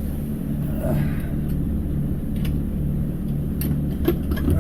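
Twin main engines of a 25-foot San Juan boat running steadily underway, a low, even hum, with a few light clicks near the end.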